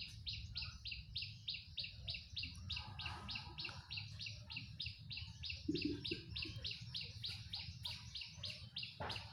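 A bird's high chirp repeated evenly and without pause, about four times a second, over a low steady background hum.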